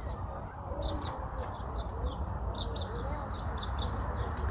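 Small birds chirping repeatedly in short, high notes, often in pairs, over a steady low rumble.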